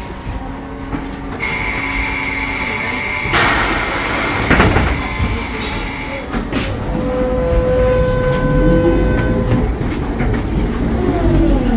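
Ikarus 280T trolleybus heard from inside while in service: a steady tone for a couple of seconds, a loud hiss of air about three and a half seconds in, then the electric drive's whine rising in pitch as the vehicle gathers speed.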